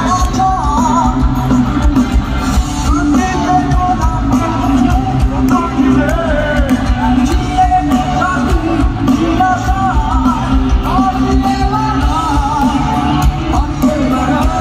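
Live rock band playing: electric guitars, drums and keyboard with singing over them, loud and continuous, heard from the audience.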